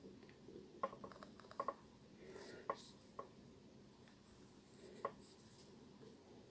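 Faint rustling with a few soft, scattered clicks as fingers pull a sewing needle and thread through the edge of thin fabric, tying needle-lace knots.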